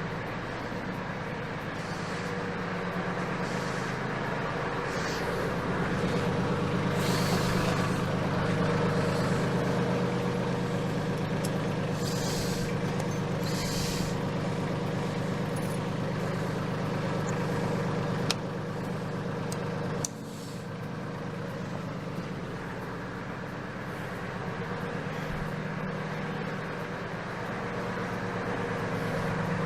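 Mahindra 1526 compact tractor's diesel engine running steadily, with several short hisses in the first half and a sharp click about 18 seconds in.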